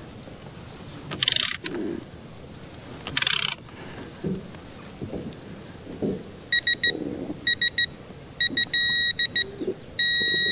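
Ratchet of a digital torque wrench clicking in two quick bursts as it is worked on the oil filter nut. It then beeps in short groups that come closer together and run longer, ending in one long steady beep near the end, the wrench signalling that the set torque is reached.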